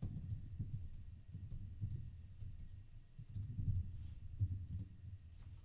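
Typing on a computer keyboard: an irregular run of key presses, each a soft thud with a faint click.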